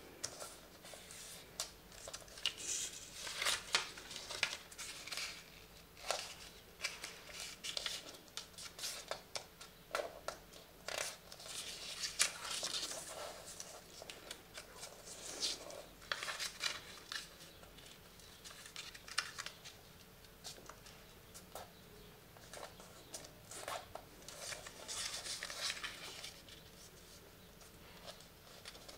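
A sheet of white paper being folded and creased by hand on a wooden table: repeated crisp rustles and swishes, with scattered light clicks.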